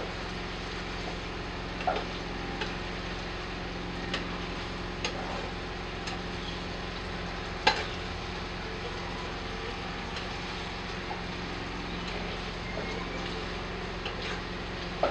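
Chicken pieces sizzling as they fry in a non-stick frying pan, stirred with a metal spoon that clicks and scrapes against the pan every few seconds, the loudest knock a little before the halfway point.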